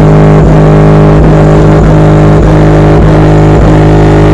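Loud rap music playing through a car's two 10-inch MTX Jackhammer subwoofers, deliberately distorted into a steady buzzing drone. A bass hit lands a little under twice a second.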